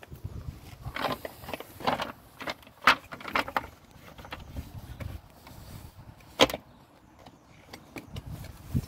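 Metal parts being handled during motorcycle front mudguard removal: scattered clicks and light rattles, with two sharp knocks about three seconds in and again about six and a half seconds in.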